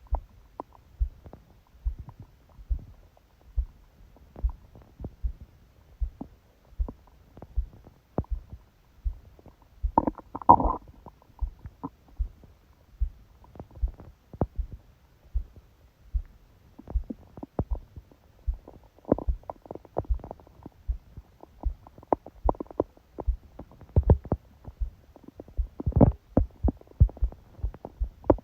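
Stomach growling and gurgling during sleep, picked up by a phone pressed against the belly, over a steady, fast heartbeat of low thumps about once a second. The loudest gurgle comes about ten seconds in, and more gurgles follow in the second half.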